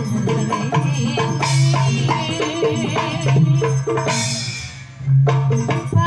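Live Javanese jaranan music: drums and struck percussion under a pitched melody. The music thins out briefly near the end, then comes back in loudly on a strong beat.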